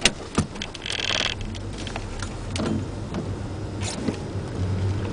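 Inside the cabin of a Ford Puma 1.7 being driven on a wet track: the engine runs with a steady low hum under tyre and rain noise. Two sharp clicks come near the start, and a short hiss about a second in.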